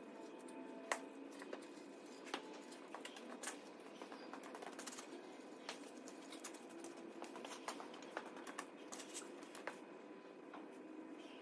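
Faint, irregular clicks and light metallic ticks as the split tractor's engine half is eased away from the gearbox.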